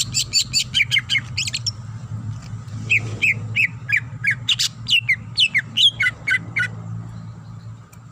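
Cucak ijo (green leafbird) singing. It opens with a fast run of sharp notes, then gives a string of downward-sliding whistled chirps about three a second, which stops nearly seven seconds in. A steady low hum runs underneath.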